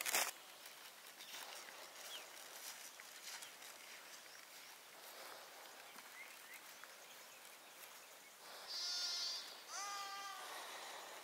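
Sheep bleating twice near the end, two short calls about a second apart, the second rising then falling in pitch, over faint background noise.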